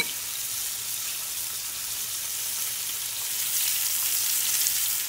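Flour-dredged bass nuggets sizzling steadily in hot frying oil in a pan, with one sharp click at the very start.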